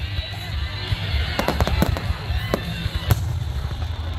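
Fireworks going off: a run of sharp bangs and crackles, bunched about a second and a half in and again near the three-second mark, over a steady low rumble.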